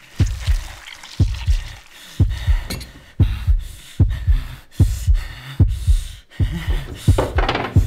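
Heartbeat sound effect: a steady low double thump about once a second, quickening toward the end.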